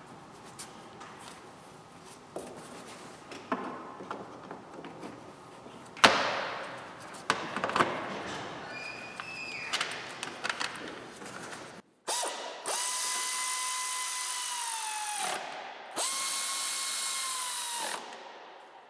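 Scattered clicks and knocks of parts being handled, then a power drill running twice, each run a steady whine of about two to three seconds that drops in pitch as the motor stops, driving in fasteners on the engine's air intake duct and air filter housing.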